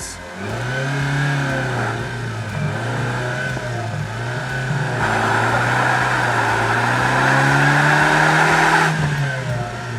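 A 105 hp Mazda car engine, running on LPG, revving hard and holding high revs under heavy load as it strains against a chained 8-tonne bulldozer without moving it. A loud rushing noise joins in about five seconds in and stops as the revs drop near the end.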